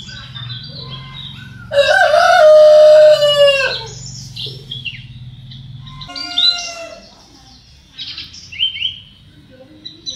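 A rooster crows, one loud, long call about two seconds in that falls in pitch at its end, followed by a fainter crow about six seconds in. Small birds chirp throughout.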